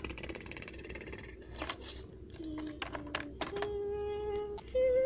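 A child making battle sound effects with the mouth: a fast rattling trill like gunfire, a few hissing bursts and clicks, then held hummed tones that step up in pitch toward the end.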